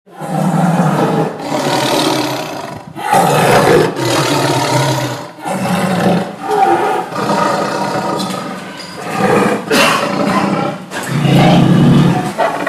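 An angry tiger roaring and snarling in a series of long, rough roars with short breaks between them.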